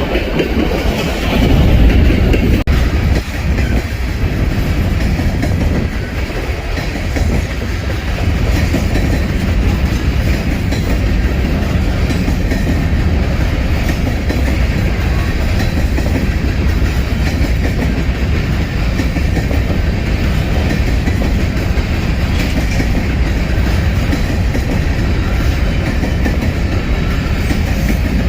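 Freight train cars rolling past, with a steady rumble and clatter of steel wheels on the rails.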